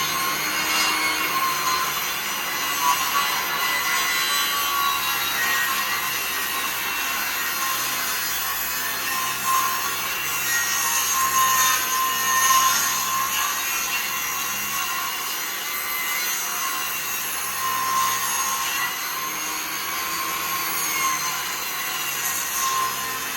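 Table saw running and ripping a pine board with the blade tilted to 45 degrees, a steady cutting whine with small swells as the board is fed through.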